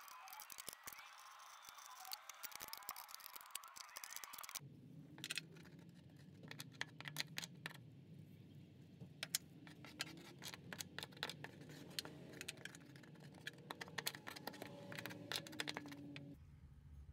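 Faint scattered clicks and small metallic ticks from tools handling the cut sheet-metal floor. About four and a half seconds in the background changes to a steady low hum under the clicks.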